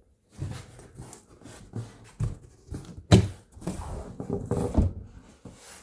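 Cardboard shipping box being opened by hand: flaps and packaging rustling and scraping, with a couple of sharp knocks.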